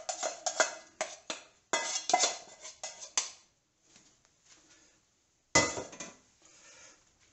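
Spoon scraping and knocking the stuck rice out of a rice cooker's inner pot: a quick run of scrapes and clinks, then after a short pause one loud clunk about five and a half seconds in.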